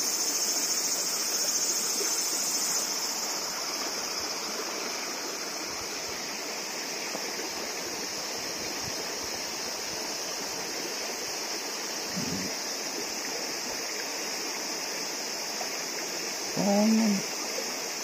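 River water rushing steadily through a riffle, with a steady high-pitched insect drone behind it. A short voice-like sound comes near the end.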